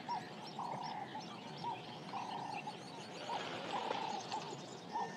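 Frogs calling in a steady chorus: short croaking notes, some longer and some clipped, about two a second, with fainter high chirps above them.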